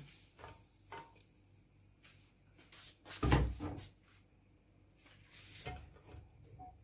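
Kitchen handling sounds while getting ready to fry: a few light knocks and one heavy thud about three seconds in.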